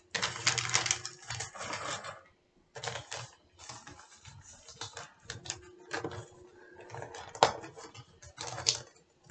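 Gift wrap and packaging rustling and crinkling in irregular bursts with sharp crackles, as a wrapped package of stickers is handled and unwrapped.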